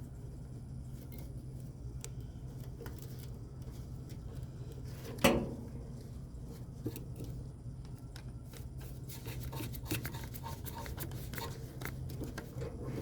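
New compressor contactor humming steadily, with one loud clack about 5 seconds in and then a run of rapid chattering clicks in the last few seconds. The chatter is the sign of intermittent low control voltage, which the technician traces to a problem elsewhere in the system.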